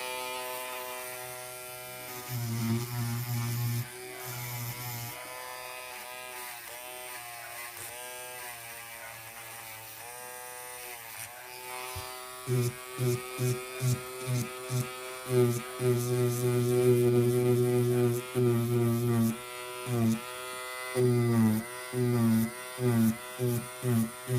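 Electric nail drill (e-file) running as it files gel on a fingernail, its whine dipping in pitch each time the bit is pressed to the nail. In the second half it comes in many short pulses as the bit is touched to the nail and lifted again.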